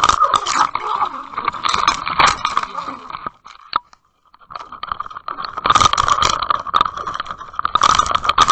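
Water sloshing and splashing against an underwater camera bobbing at the surface, with a dense clatter of knocks on its housing over a steady hum. The sound drops out almost completely about four seconds in, then returns louder and fuller as a muskie thrashes and splashes at the surface beside the camera.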